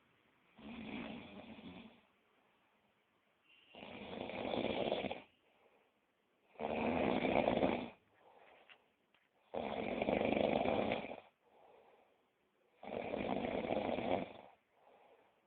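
A man snoring heavily in his sleep: five long snores at a regular pace about three seconds apart, each followed by a fainter breath out.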